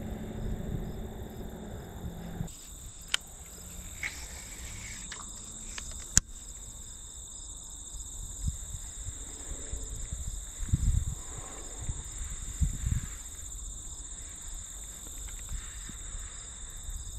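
Crickets and other insects trilling steadily in high, continuous and pulsing tones. A low hum underneath stops abruptly about two seconds in, and a few sharp clicks and low bumps come in between.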